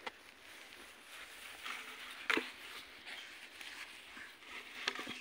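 Puppies at play, giving a few short yips; the loudest comes a little over two seconds in, another near the end.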